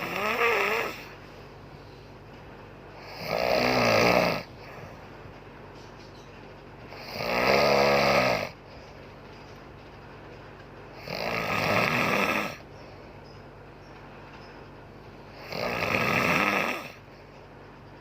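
A woman snoring loudly and regularly, five snores about four seconds apart, each lasting over a second. A steady low hum sits between them.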